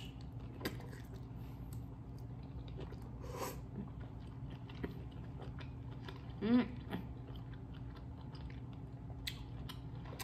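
Close-miked chewing and biting of sauce-soaked lobster tail meat: soft wet clicks and smacks from the mouth throughout. A brief hummed sound of the voice comes about six and a half seconds in.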